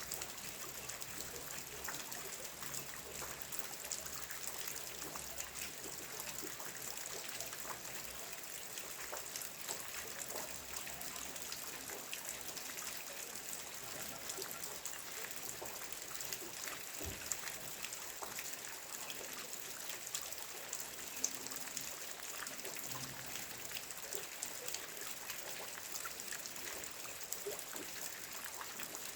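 Steady rain falling, an even hiss with many small drop ticks and a few louder drips, trickling like runoff.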